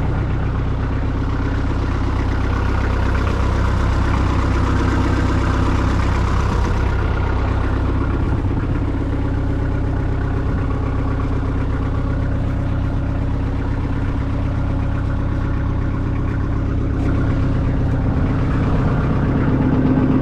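Kubota L48 tractor loader backhoe's diesel engine idling steadily.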